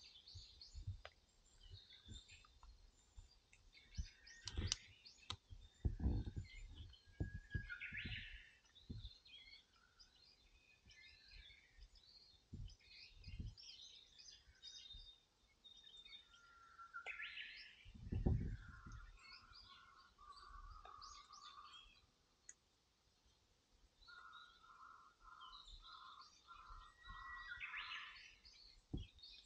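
Wild birds singing and chirping, with a run of short repeated call notes near the end. A few brief low thumps sound among them, the loudest about 18 seconds in.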